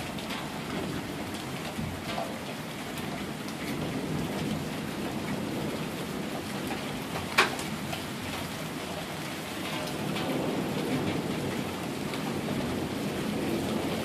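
Steady rain falling and splashing on pavement and lawns, with a low thunder rumble underneath that swells slightly after about ten seconds. A single sharp tap sounds about seven seconds in.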